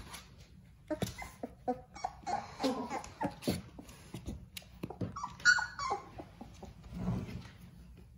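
Eighteen-day-old Labrador Retriever puppies making a string of short whimpers and squeaks as they squirm together. The loudest is a sharp, high squeal about five and a half seconds in.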